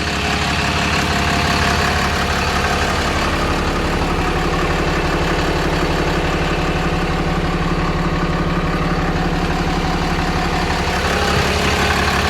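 2009 Dodge Ram 5500 wrecker's engine idling steadily, with an even low rapid pulse.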